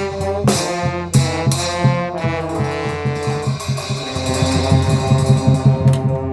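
Brass band with trombones playing: short accented notes for the first couple of seconds, then longer held notes over a steady low bass line.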